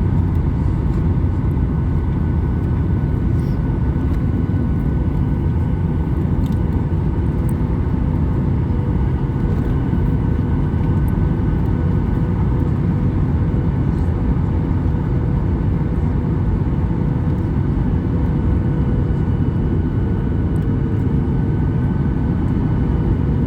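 Boeing 737-800 cabin noise in flight: a steady roar of airflow and CFM56-7B engines, with a few faint steady tones over it.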